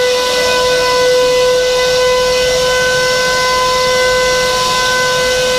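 Vacuum cleaner motor running at full speed with a loud, steady whine.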